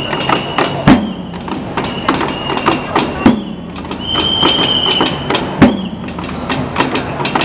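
Street drumming band playing: three deep, booming drum hits a couple of seconds apart over quick, busy stick strokes. A whistle blows long high notes, the longest about four seconds in.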